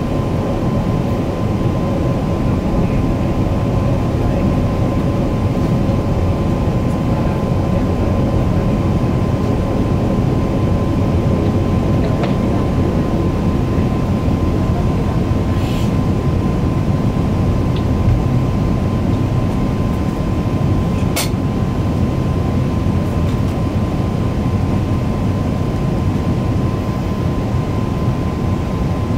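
Airbus A380 cabin noise from a window seat by the wing on approach: a steady low roar of airflow and the Rolls-Royce Trent 900 engines, with a thin steady whine running through it. A single sharp click about 21 seconds in.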